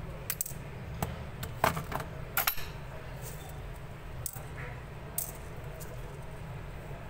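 A few sharp plastic clicks and taps as a QMobile Q130 Classic keypad phone's casing is handled and prised apart, the loudest about one and a half and two and a half seconds in, over a steady low hum.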